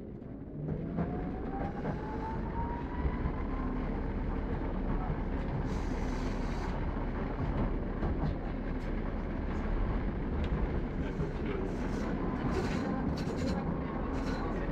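Tram heard from inside the passenger car: the electric traction motors' whine rises in pitch over the first few seconds as the tram pulls away, then holds steady over a constant rumble of wheels on rails, with scattered rattles and clicks from the car.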